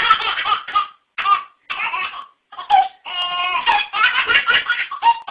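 Baby laughing in short bursts of giggles and belly laughs, breaking into a longer run of quick, pulsing laughter about three seconds in.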